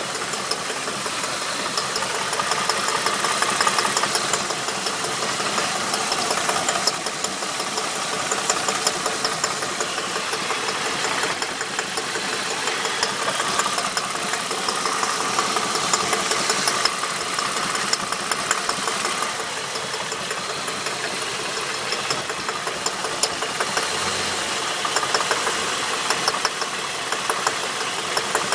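Holden VT engine running steadily with a fast, continuous knocking rattle.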